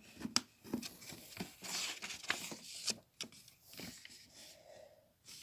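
Paper rustling and pages turning as a glossy printed catalogue is leafed through, with scattered light clicks and taps of handling.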